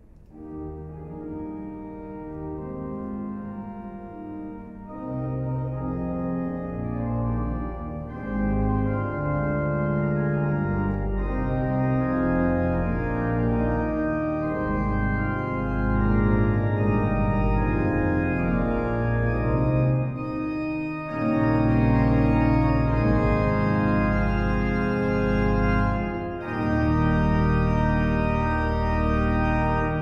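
The 1912 Harrison & Harrison pipe organ plays full chords on the Great chorus. The sound grows louder and brighter in several steps as stops are added up the chorus towards the Harmonics mixture, with short breaks between phrases near the end.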